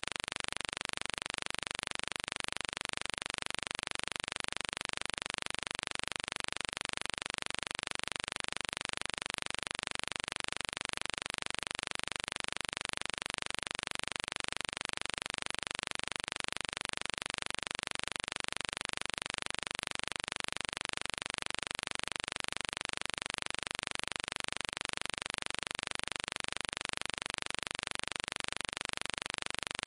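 A steady, unchanging hiss that keeps the same level throughout, with nothing else heard over it.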